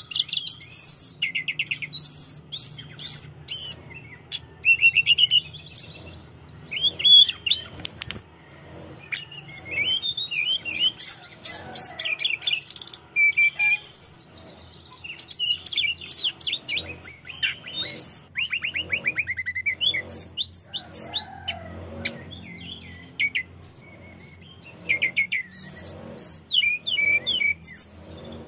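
Caged hill blue flycatcher (tledekan gunung) singing vigorously: a fast, varied stream of high whistles, sliding notes and quick trills, phrase after phrase with only short pauses.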